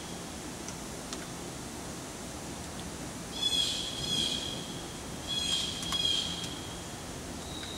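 High-pitched whine from a YCM Supermax XV1020A vertical machining center, in two bursts of about a second each over a steady hiss, with a fainter tone near the end.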